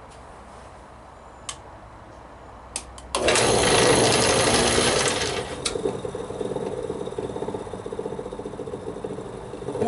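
A few light clicks, then about three seconds in a radial arm saw's electric motor is switched on and spins up with a loud rush, driving a belt-and-pulley lathe spindle with no workpiece. After about two seconds it settles into a steady running hum.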